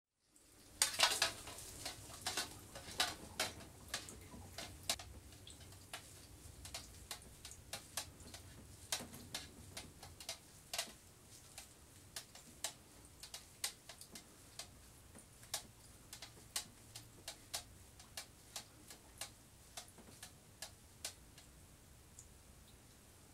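Small sharp clicks and drips, irregular at about one or two a second, loudest in the first few seconds, as a wet glass collodion plate is rocked in processing solution in a shallow stainless steel tray.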